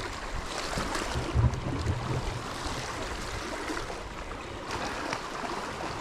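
Calm sea water gently lapping and washing against shore rocks, with a brief low rumble about a second and a half in.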